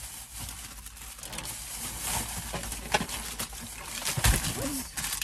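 Plastic shopping bag rustling and crinkling as items are pulled out of it, with small crackles throughout and a dull thump about four seconds in.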